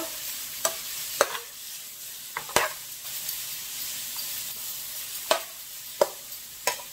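Butterbur stems and ground perilla seed sizzling in a frying pan while a metal spoon stirs them, knocking and scraping against the pan about seven times over a steady low hiss of frying.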